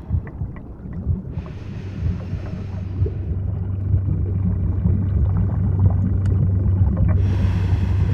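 Underwater ambience: a steady low rumble that grows louder, with scattered small clicks and a spell of hiss between about one and three seconds in.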